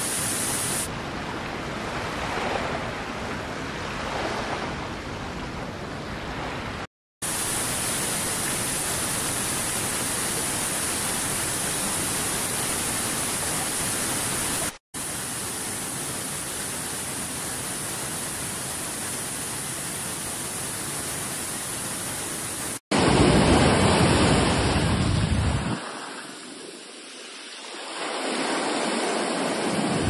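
Steady rushing nature ambience made of several recordings joined with brief silent cuts, about seven, fifteen and twenty-three seconds in. The last piece is louder, with a deep low rush that drops away for a couple of seconds and then returns.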